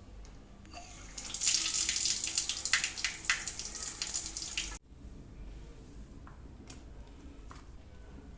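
Water running hard from a tap for about three and a half seconds, then cutting off abruptly, followed by a few faint clicks.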